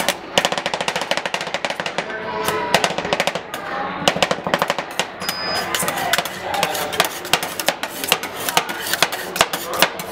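Two metal spatulas rapidly chopping and scraping ice cream on a stainless-steel cold plate: fast, irregular clattering strikes of metal on metal, several a second, as the mixture is chopped while it freezes into rolled ice cream.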